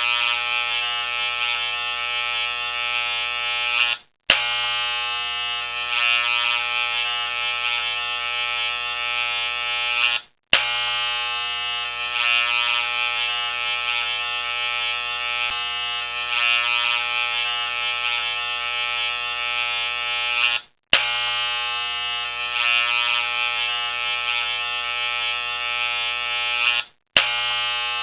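A harsh, steady electric buzz, looped: it cuts out briefly four times and starts again each time.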